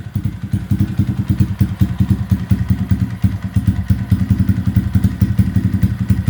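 Razkull SSR 125 pit bike's single-cylinder four-stroke engine idling steadily through its aftermarket exhaust, a rapid, even chugging of exhaust pulses.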